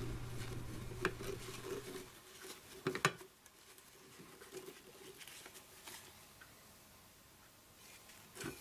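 Light handling sounds of hair accessories being moved in and out of a glass jar of hairbrushes: soft fabric rustling and small scattered ticks, with sharper clicks about one second and about three seconds in, and again near the end.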